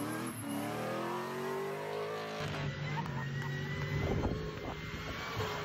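Vehicle engine revving, its pitch rising and falling, with an abrupt change in the sound about two and a half seconds in.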